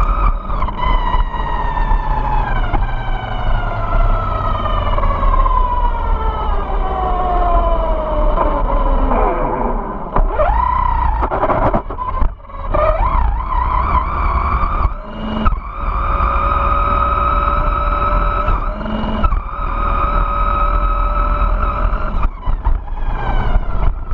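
Electric motor and drivetrain of a Vaterra Glamis Uno RC buggy whining, heard from a camera mounted on the car. The pitch falls slowly over the first several seconds, then rises and drops with the throttle and cuts out briefly a few times. A steady low rumble of wind and tyres runs underneath.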